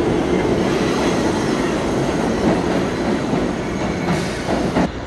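New York City subway train on the Lexington Avenue line pulling out of the station past the platform, its stainless-steel cars rumbling and clattering over the rails. The sound falls away near the end as the last car clears.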